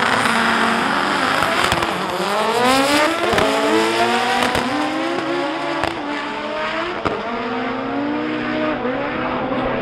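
Drag-racing cars at full throttle down the strip, engine pitch climbing over and over and dropping back at each upshift.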